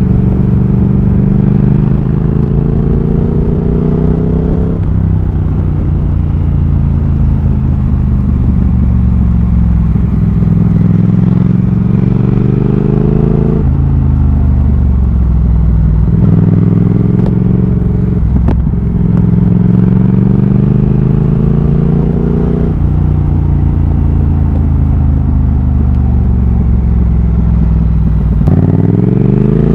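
Triumph Thruxton RS 1200 cc parallel-twin engine running loud through British Customs GP slip-on exhausts with an X-pipe, as the motorcycle is ridden. The engine note climbs steadily in pitch and then drops back sharply, three times, then drops and climbs quickly again near the end.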